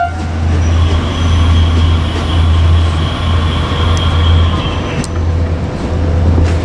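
Vehicle passing at close range: a steady loud low rumble, with a faint whine from about one to five seconds in.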